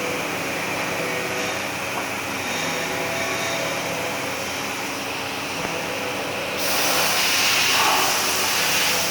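CNC vertical machining center running steadily, with faint steady tones under a mechanical noise; a louder hiss comes in about six and a half seconds in.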